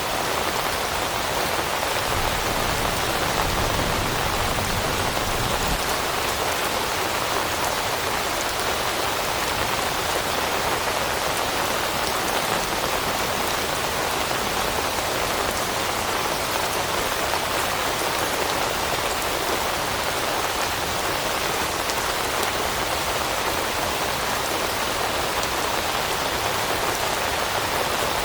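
Steady rain falling on leaves in a forest: a dense, even patter of drops with no let-up.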